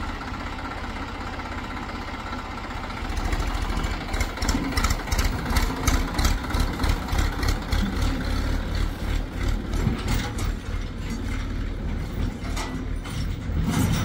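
Heavy diesel engine running, steady at first. About three seconds in it grows louder and uneven, with a rapid, irregular clatter of knocks over it.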